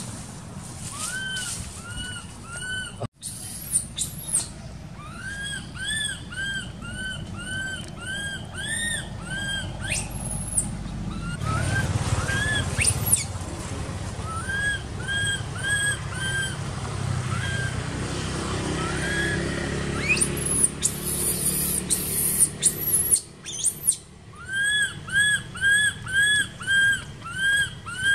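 Baby macaque crying: runs of short, high-pitched squeals, each rising then falling, about two a second. They break off in the middle while a low rumble rises, and come back loudest near the end.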